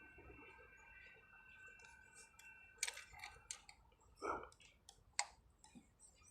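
Scattered light clicks and a few clinks of hand tools and small metal parts during work on a truck's fuel pump, with a short dull knock about two-thirds of the way through. A faint steady high tone fades out about halfway.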